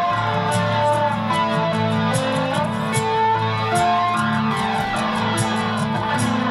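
Nylon-string guitar played in an ambient style: a steady stream of picked notes that ring on over one another.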